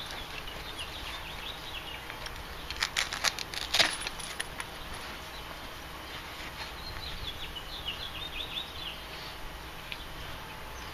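A quick run of clicks and knocks about three seconds in as the metal detector's upper shaft and handle are lifted out of the padded carry bag and handled. Birds chirp in the background.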